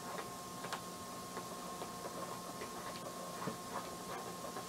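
Faint irregular ticks and rustles of hands handling and tying lace ribbon around a bouquet handle, over a faint steady tone.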